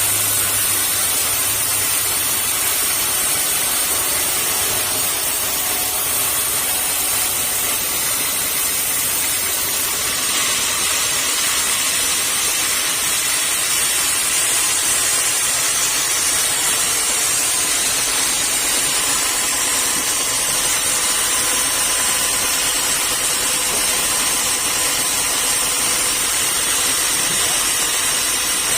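Sawmill saw running continuously through acacia timber, a loud steady machine noise with a strong high hiss that fills out about ten seconds in.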